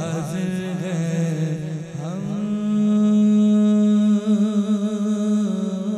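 Naat recitation: a male voice chanting without instruments, with winding melodic turns, then one long note held from about two seconds in, over a steady hummed drone.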